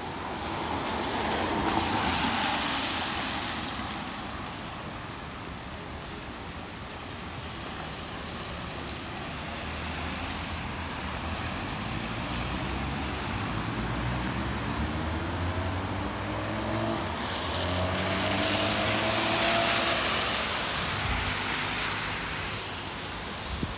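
Cars passing on a wet road, their tyres hissing. The hiss swells and fades about two seconds in. Later a vehicle's engine climbs in pitch as it accelerates past, and a second swell of tyre hiss comes near the end.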